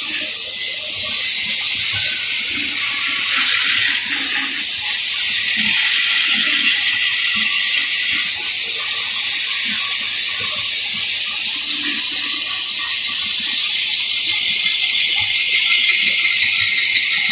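Steady, loud hissing noise, with faint irregular knocks beneath it.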